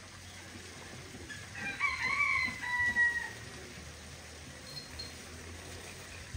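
A rooster crowing once, a single drawn-out call of about two seconds that starts about a second and a half in.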